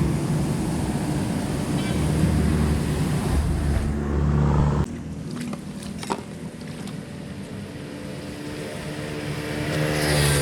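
An engine running, loud at first, dropping off suddenly about five seconds in with a few clicks, then swelling again near the end.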